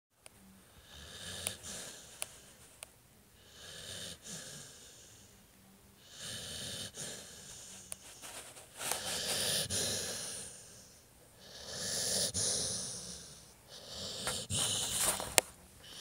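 A sleeping dog snoring, about six slow snoring breaths, one every two to three seconds, louder in the second half. A few faint clicks fall between the breaths.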